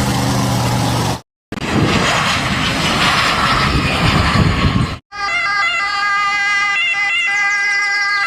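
A run of cartoon vehicle sound effects, each cut off sharply: an engine hum for about a second, a few seconds of loud rushing noise, then a steady siren with stepped tones.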